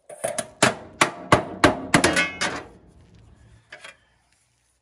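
Claw hammer striking the sheet-metal cover of a refrigerated air dryer's electrical box to knock the lid loose: about nine quick, ringing metal blows in the first two and a half seconds, then a couple of lighter knocks.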